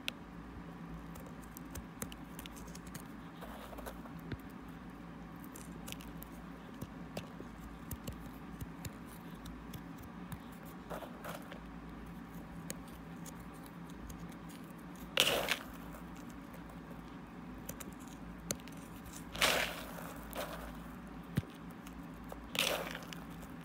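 Para moth crystals being crushed and rubbed between fingertips in a bowl: a run of small crackles and gritty scrapes, with three louder crunches in the second half as clumps give way.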